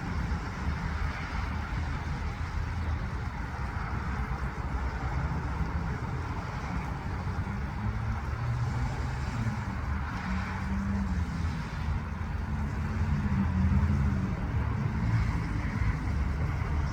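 Low, crackling rumble of a rocket launch heard from a distance, swelling a little about two-thirds of the way through.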